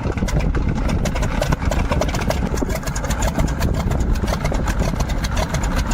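A heavy vehicle engine running steadily, with a fast, dense clatter over it.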